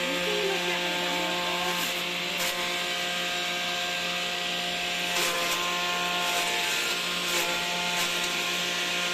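Shredder (chopper) machine running steadily while it chops leafy plant material: a constant motor hum under a hiss, with a few sharp ticks as pieces hit the blades.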